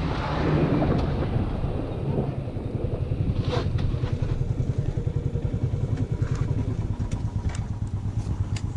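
Suzuki Gixxer SF motorcycle's single-cylinder engine running at low speed with an even, rapid low throb, with wind on the microphone easing off over the first couple of seconds. A few light clicks over the top.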